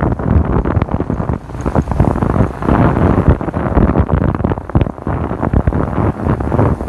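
Loud, gusty wind buffeting the microphone while travelling along a road, a rumbling noise that rises and falls in quick gusts.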